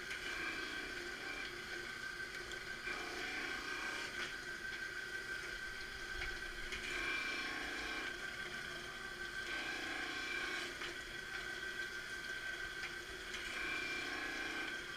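Marunaka MG-500 straight knife grinder rough-grinding a straight knife: a steady whine from the grinding head, with the grinding noise swelling and fading every few seconds as the carriage tracks the blade back and forth under the wheel.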